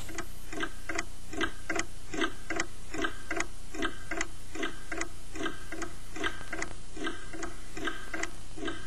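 A clock ticking steadily, about three ticks a second.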